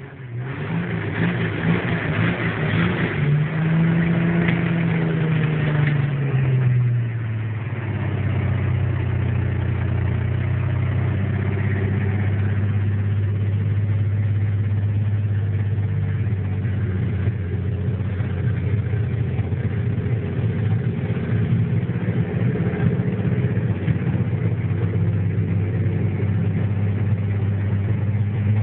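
Restored Chevrolet Opala's modified engine with headers and multiple carburettor throats, revved a few times in the first six seconds, then settling into a loud, steady idle.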